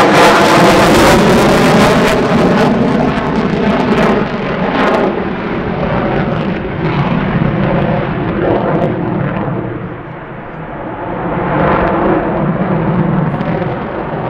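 F-35C Lightning II's single Pratt & Whitney F135 engine running in afterburner: loud jet noise with a sweeping, phasing whoosh at first, easing off about ten seconds in and building again a couple of seconds later.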